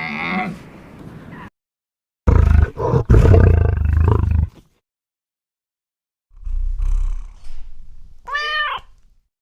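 A big cat roaring loudly a couple of seconds in, then after a silent gap a quieter, lower rumbling roar, with a short high call that rises and falls near the end.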